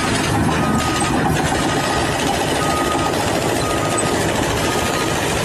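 A machine's engine running steadily, with a faint high beep recurring at uneven intervals.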